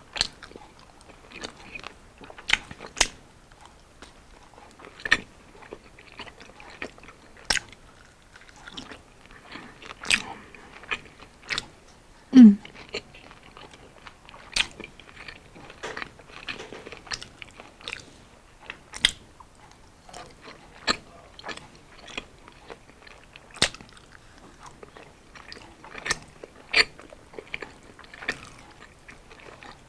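Close-up eating sounds of fried battered street food being bitten and chewed: irregular crisp crunches, clicks and mouth noises. About twelve seconds in there is one short, louder low sound that falls in pitch.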